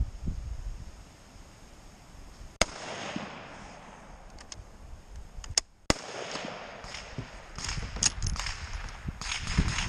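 Sharp rifle-shot reports on a range: single shots a few seconds apart, one about a quarter of the way in, two close together just past halfway, and a lighter one near the end. Between them come a few faint metallic clicks as a bolt-action rifle's bolt is handled.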